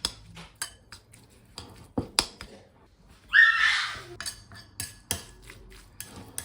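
A spoon clinking and scraping against a bowl as the spicy shrimp and mayonnaise mixture is stirred: irregular small clinks, with one louder scrape about three seconds in.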